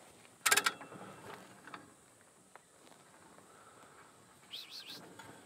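A brief metallic rattle about half a second in as the camper trailer's self-locking front hand winch is handled, followed by a few faint clicks, and a short high chirp near the end.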